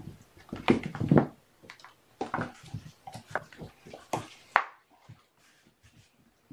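A string of knocks, clicks and rustles from things being handled close to the microphone, thinning out to a few faint ticks after about four and a half seconds.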